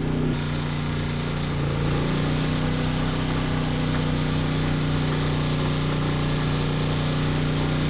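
Champion 4000-watt digital hybrid inverter generator running steadily under load. Its engine note shifts about two seconds in as the microwave and blow dryer come on together, then holds.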